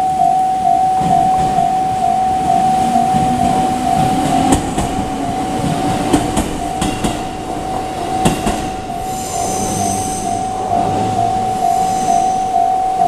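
A railway level crossing alarm rings in rapid, even pulses while a train passes, its wheels clicking over the rails. The wheels give a brief high squeal about nine seconds in and again near the end.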